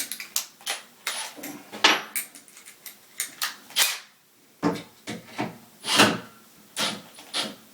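A string of irregular sharp metal clanks and knocks, some ringing briefly, as steel parts and tools are handled and fitted together.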